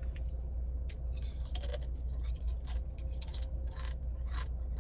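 A person chewing a sub sandwich close to the microphone: a string of short, irregular mouth sounds, roughly two or three a second, over a steady low hum.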